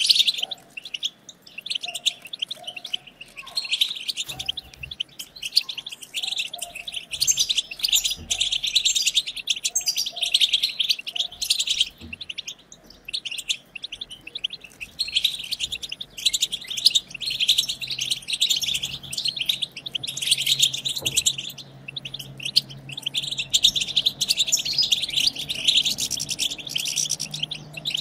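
European goldfinches chattering and twittering in fast, dense runs of high notes, broken by a few brief pauses: the 'batbata' chatter of goldfinches.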